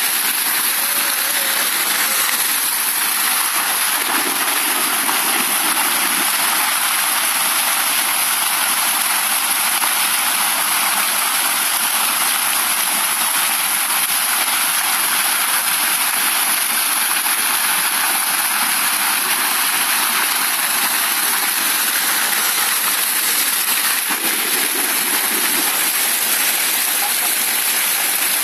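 Fountain jets spraying and falling into a shallow pool: a loud, steady rush of splashing water.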